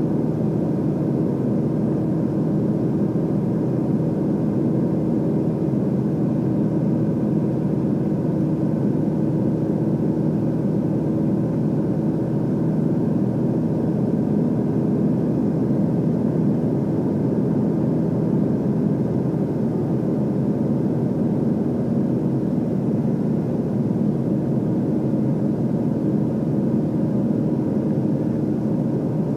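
Steady drone of a single-engine piston light aircraft's engine and propeller in level cruise, heard inside the cockpit, an even hum with a few low steady tones.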